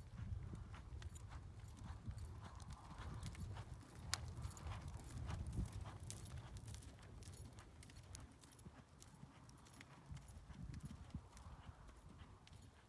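Horse's hoofbeats on arena sand as it is ridden, faint and muffled over a low steady rumble.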